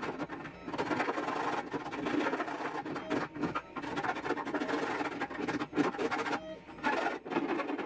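Hand file rasping in quick repeated strokes across the edge of 3D-printed PLA plastic, smoothing off rough spots left by support material, with a couple of brief pauses.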